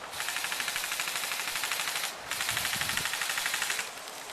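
Airsoft gun firing full-auto in two long bursts of rapid snapping shots, the first about two seconds long, the second about a second and a half, with a brief break between.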